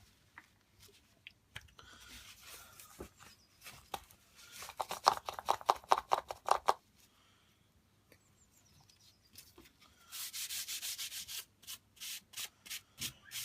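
Quick back-and-forth hand rubbing strokes on a small knife-handle part, about four strokes a second, in two runs: one from about four and a half seconds in, then a brighter, hissier run from about ten seconds in.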